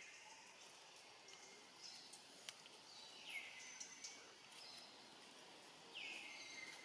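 Faint outdoor ambience with a bird calling twice, each call a note that falls and then holds steady, along with scattered short high chirps and ticks.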